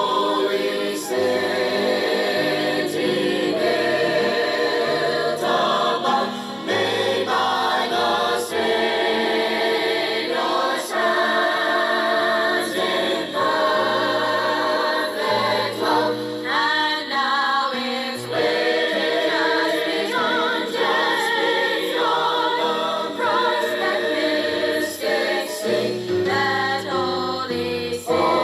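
A group of voices singing a gospel song in harmony, continuous throughout.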